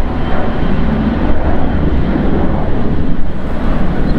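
Jet airliner engines, a loud, steady, deep rumble.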